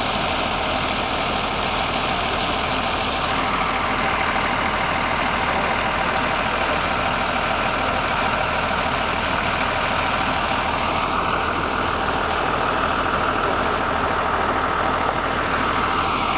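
A vehicle engine idling steadily, with a constant running hum.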